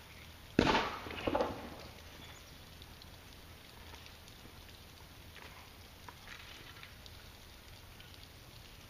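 A heavy rock thrown down onto stony ground: one sharp, loud impact about half a second in, then a smaller knock and clatter as it bounces and settles.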